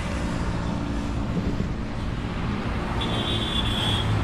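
Steady motor vehicle and road traffic noise, a continuous low rumble. A thin high tone sounds for about a second near the end.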